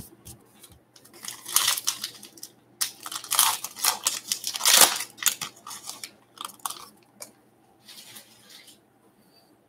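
A baseball card pack's foil wrapper being torn open and crinkled: a run of rustling, tearing bursts lasting several seconds, loudest in the middle, dying away near the end.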